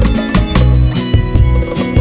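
Background music: an upbeat track with strummed acoustic guitar and a steady beat.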